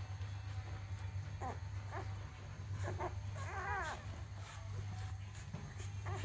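One-week-old Golden Retriever puppies squeaking and whimpering while nursing: a few short high squeaks and one longer wavering whimper about halfway, over a steady low hum.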